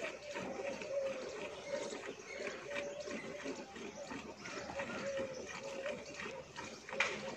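Buffalo milk squirting from the teats into a metal bucket during hand milking, in quick uneven streams, with one louder squirt near the end.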